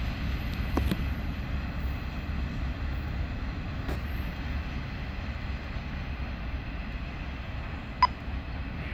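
Freight train rumbling away on the rails as its tail end recedes, a steady low rumble that slowly fades. A short sharp click near the end.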